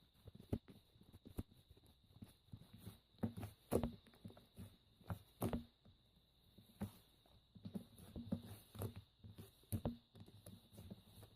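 Irregular soft taps and knocks, a few louder than the rest, over a faint steady high-pitched whine.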